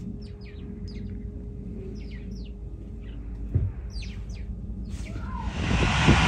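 Small birds chirping in short, quick falling notes over a low steady rumble, with a single dull thump about halfway. Near the end an aircraft's engines swell in with a loud rushing noise that keeps building.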